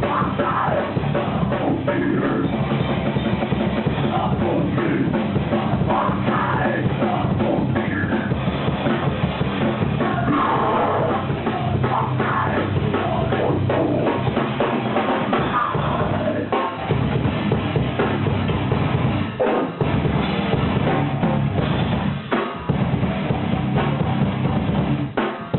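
Heavy metal band playing live: pounding drum kit with bass drum and snare under distorted electric guitars and bass, with brief breaks in the riff a few times near the end.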